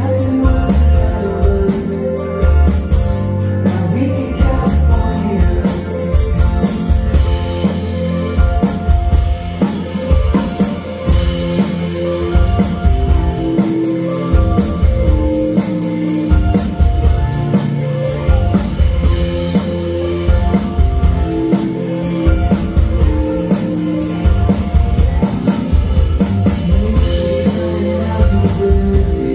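Rock band playing live: drum kit, electric bass, electric guitars and keyboard, loud and continuous, recorded on a phone from within the crowd.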